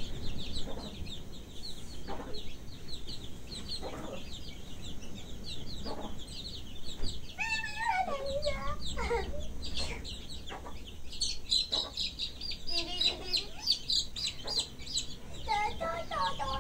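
Chickens clucking, with rapid high chirps throughout and a few louder wavering calls midway and near the end.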